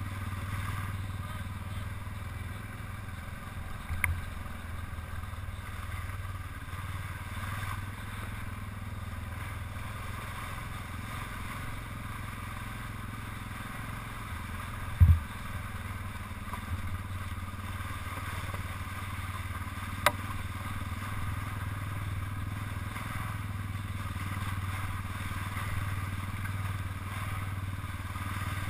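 Dirt bike engine running steadily at low revs. There is a heavy thump about fifteen seconds in, and sharper knocks at about four and twenty seconds.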